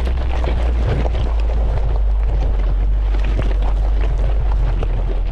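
Off-road vehicle driving over a loose, rocky gravel logging road: a deep steady rumble with the crackle and clatter of stones crunching under the tyres.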